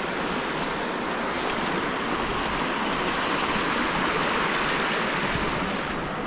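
Small rocky creek running over riffles and little cascades: a steady, even rush of water.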